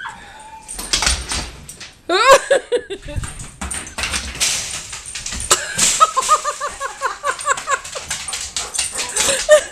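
A Labrador's claws clicking and scrabbling on a vinyl floor as it runs for a ball, with short high excited whines in between.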